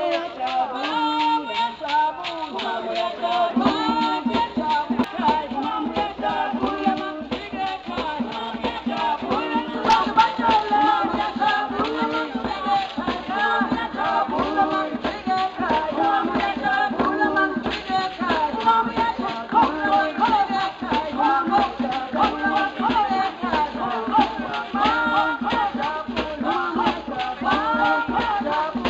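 Music with a quick steady beat and a shaker rattle, with melodic lines over it.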